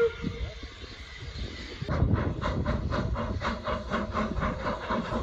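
Exhaust chuffs of the narrow-gauge steam locomotives Eureka and Glenbrook working a train. An even beat of about four chuffs a second starts about two seconds in, over a low rumble.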